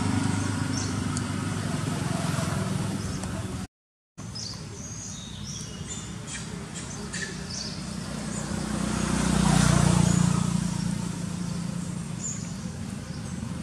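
Outdoor ambience: a vehicle passing, its low rumble swelling to its loudest about ten seconds in and then fading, with small birds chirping now and then. The sound cuts out completely for half a second about four seconds in.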